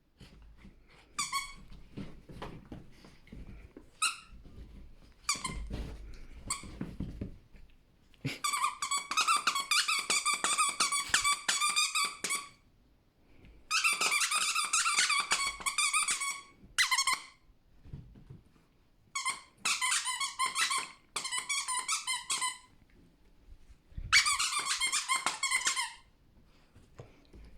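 A Chinese Crested dog chewing a squeaky toy: bursts of rapid, high squeaking, each lasting one to four seconds, with soft chewing and shuffling noises in between.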